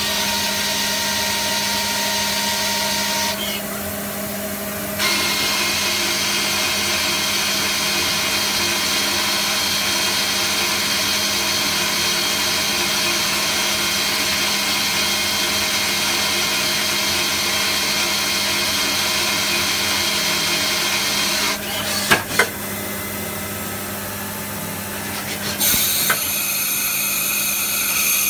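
Citizen K12E VIIP Swiss-type CNC lathe running a machining cycle: a steady hum under a loud hiss with high whining tones that falls away and comes back as the operations change. Two sharp clicks come about 22 seconds in, and a new, higher whine starts near the end.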